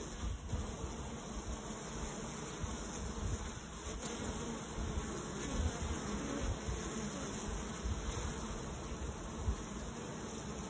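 Many honeybees buzzing at the hive entrances, a steady low hum from a colony bearding on the hive fronts in the heat.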